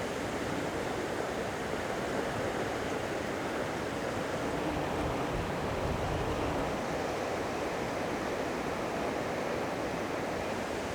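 Steady outdoor rushing noise of wind and water, at an even level with no distinct events.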